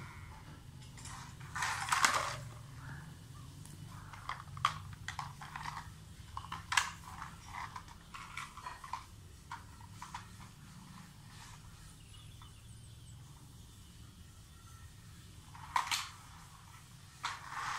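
Plastic toy vehicles being pushed, handled and knocked about on a hard tiled floor: irregular small clicks and clatters, with two louder clatters about two seconds in and near the end. A low steady hum runs underneath.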